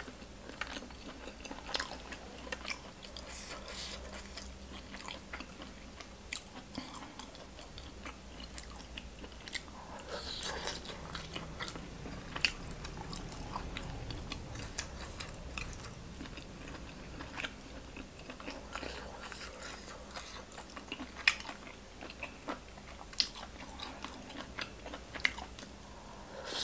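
A person chewing and eating close to the microphone: wet mouth sounds with many short clicks and smacks, a few sharper ones later on, as boiled pork offal and green papaya salad are eaten.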